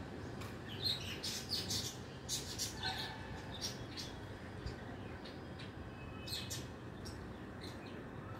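Birds chirping in quick, short calls, bunched in the first three seconds and again about six seconds in, over a steady low background hum.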